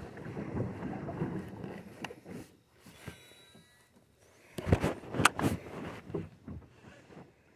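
Handling noise in a small plastic fishing boat: rustling and wind on the microphone, then a few sharp knocks a little past halfway, the loudest sounds here.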